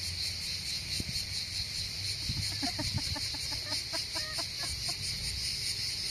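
A steady, high insect chorus of crickets, shrilling with a fast pulse. Over it, a chicken clucks in a run of short, repeated notes from about two and a half to five seconds in.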